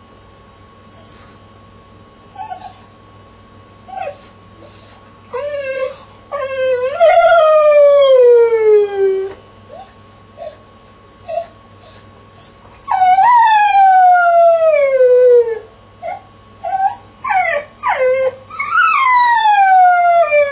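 Dog howling while shut in a crate: long howls that slide down in pitch, separated by short whimpers and yips. The first howl starts about six seconds in.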